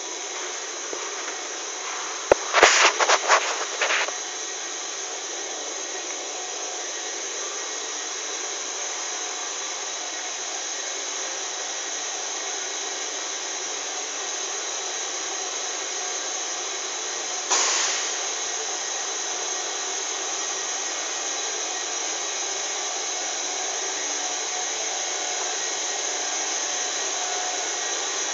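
Steady factory machinery noise with a high hiss. A quick run of loud knocks comes about two to four seconds in, and one more sharp knock comes at about 17 seconds.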